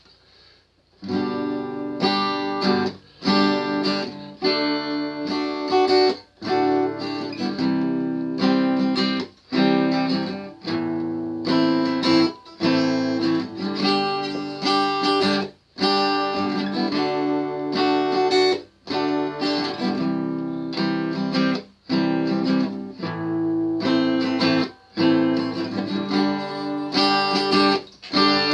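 Guitar playing chords, starting about a second in after a brief silence, with short breaks between phrases every few seconds.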